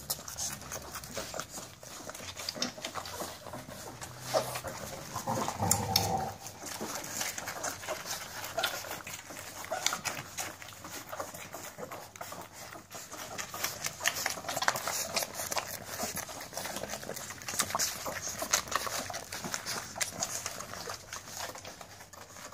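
American Staffordshire terrier puppies suckling at their mother, with continuous wet smacking and clicking. About five or six seconds in there is a brief louder sound, a short cry or grunt.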